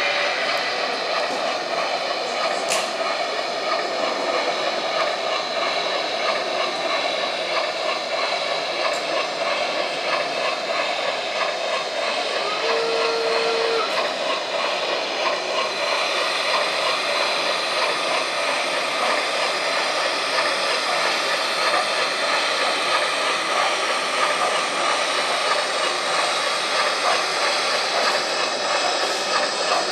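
Steady running sound of a steam train, an even rumble with hiss, with one short steady tone about halfway through.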